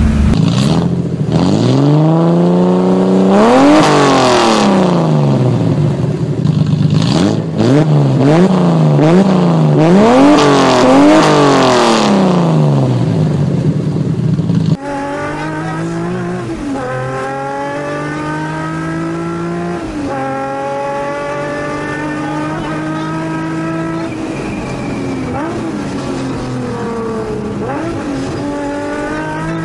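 Datsun Z-car engines revving hard. First comes loud rising and falling revs with a run of quick blips, including a 280Z's straight-six revved through an exhaust with no silencer. After a sudden drop in level about halfway, a quieter in-car recording follows of a Z being driven fast: the engine climbs in pitch and falls back at each gear change.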